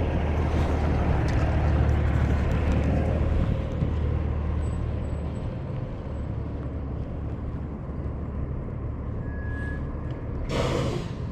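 Heavy wind rumbling on the microphone, strongest in the first few seconds, with a short louder rush of noise near the end.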